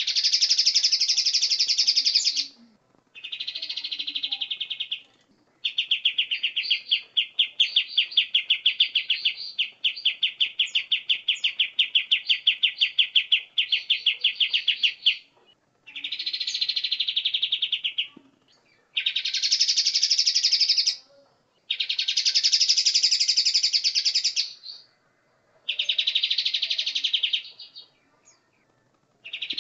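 Songbirds sing loud, high-pitched phrases of about two seconds each, separated by short pauses. The longest stretch is a run of fast repeated notes. This is a masteran track of leafbird (cucak cungkok, cucak kinoi) and kapas tembak bulbul song, used to tutor cage birds.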